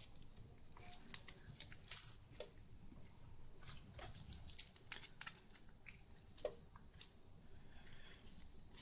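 Small irregular clicks and scrapes of a pry tool working under the glued screen edge of a portable music player, with one louder scratch about two seconds in.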